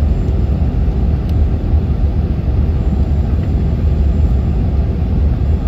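Airliner cabin noise heard from a window seat during the descent to land: a steady, deep rumble of engines and rushing air.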